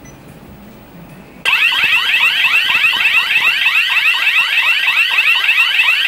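Fronti wireless burglar alarm siren sounding a panic alarm triggered from the keypad. It starts suddenly about a second and a half in, as a loud, fast, repeated rising whoop of about four sweeps a second.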